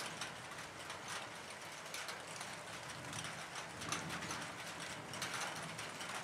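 Irregular light ticks and clicks, several a second, over a faint low hum.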